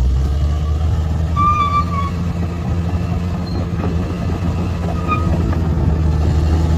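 Bulldozer's diesel engine running steadily, with a few short high squeals about one and a half and five seconds in.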